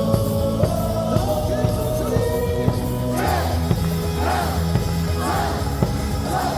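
Baseball stadium crowd singing a cheer song along with amplified music, with a steady beat about twice a second.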